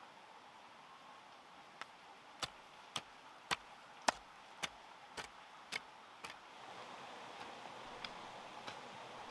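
Repeated sharp chopping strikes, about two a second, nine in all, stopping a little past six seconds in. Fainter ticks and a steady hiss follow.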